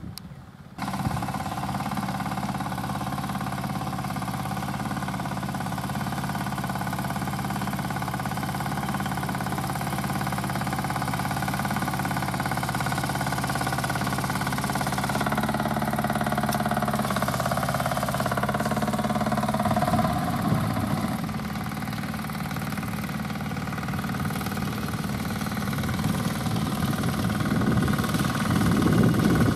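BCS 853 walk-behind tractor's diesel engine running steadily at about a third throttle while driving a 71-inch dual-action sickle bar mower through hay. The sound comes in suddenly about a second in, shifts in pitch about halfway through, and grows louder near the end.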